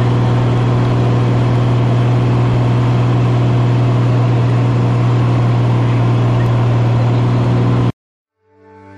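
Light airplane's engine and propeller drone inside the cabin, loud and steady with a deep hum. It cuts off abruptly about eight seconds in, and music fades in just after.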